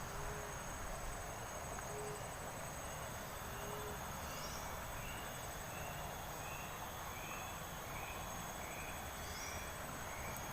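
A long series of short, arched calls from an unidentified animal, repeating about one and a half times a second, which the fisherman cannot place and guesses may be a bird. Three soft low hoots come in the first few seconds, over a steady drone of insects.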